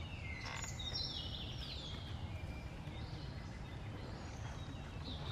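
Outdoor ambience: a steady low rumble with a few high, falling chirps in the first two seconds.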